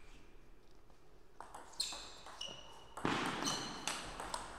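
Table tennis rally: a celluloid-type ping-pong ball struck back and forth, making a quick series of sharp clicks off the bats and the table, about two a second, some with a brief high ring. It starts about a second and a half in, after a quiet moment before the serve.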